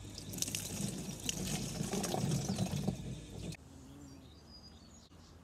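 Water pouring from a plant-pot saucer into a plastic watering can, busy and rattly, cutting off suddenly about three and a half seconds in. A quiet background with a few faint high chirps follows.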